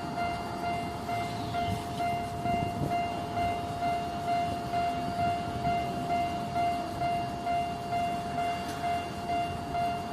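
Japanese railroad crossing warning bell ringing in a steady repeating electronic tone, about two strokes a second, over the low rumble of a train.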